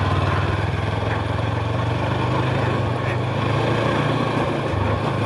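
Macbor Montana XR5 510 motorcycle's engine running steadily at a constant pitch while riding on loose gravel, with tyre and wind noise behind it.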